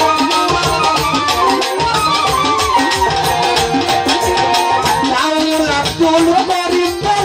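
Bengali baul folk music: a wavering melody line over a fast, dense percussion rhythm.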